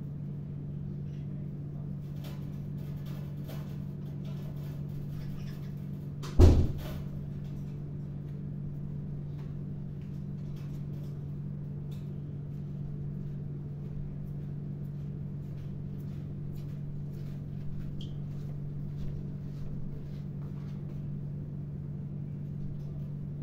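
Steady low hum with faint scattered ticks and one sharp loud knock about six seconds in, of the kind heard around a pet parrot in its metal cage.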